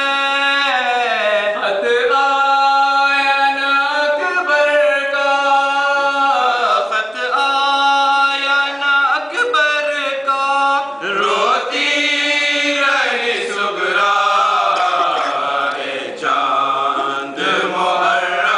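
A group of men chanting an Urdu noha, a Muharram lament, together in long held notes that slide from one pitch to the next.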